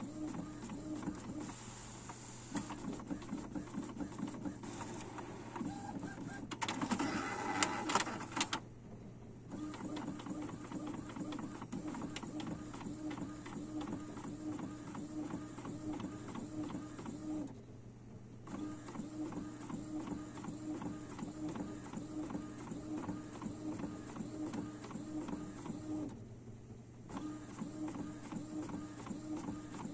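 Epson inkjet printer printing a page: the printhead carriage shuttles back and forth with a steady mechanical whir and rapid clicking. It grows louder and noisier for a couple of seconds about seven seconds in, and stops briefly twice in the second half before running on.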